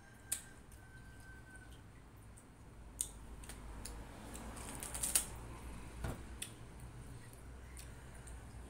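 Someone biting and chewing juicy, watery watermelon: a few short, sharp wet clicks and crunches scattered over a low hum, the loudest about five seconds in.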